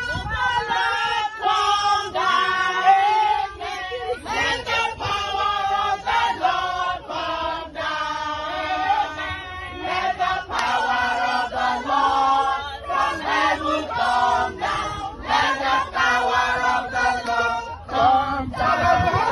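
A group of voices singing together in chorus, phrase after phrase.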